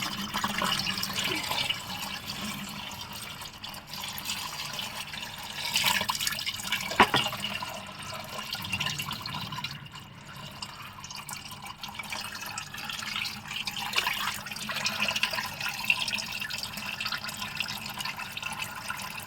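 Old, thinned engine oil trickling and dripping from the Maruti Baleno's sump drain hole into a catch pan, with a sharp metallic clink about seven seconds in.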